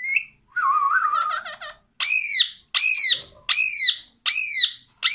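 Pet parrot calling: a short chirp and a warbling call, then five loud screeches, evenly spaced and each rising and falling in pitch.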